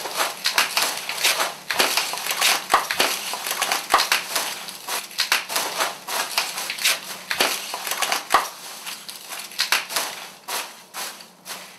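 Dense, irregular crunching and crackling, thinning out over the last couple of seconds, with a faint steady hum underneath.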